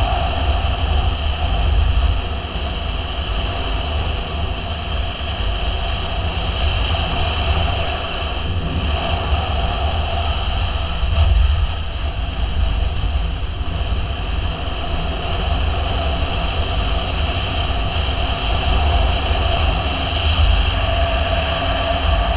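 Motorcycle riding at a steady road speed, its engine running under a heavy low wind rumble on the microphone.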